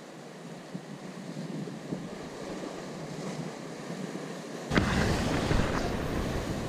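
Ocean surf washing and breaking through the concrete tetrapod blocks of a jetty. About two-thirds of the way through, a sudden loud rumbling rush on the microphone starts as the sleeve brushes across the body-mounted camera, and it runs on over the surf.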